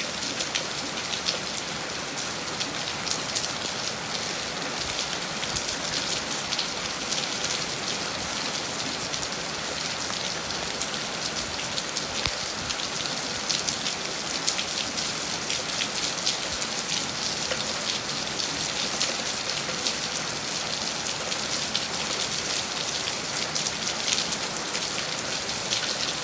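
Steady rain falling and hitting a surface, a dense even hiss of many individual drop impacts.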